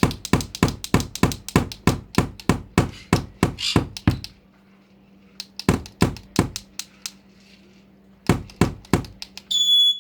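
Hammer striking a nail in quick repeated blows, about five a second, in a long run and then two shorter runs after a pause. A short high whistle-like note sounds near the end.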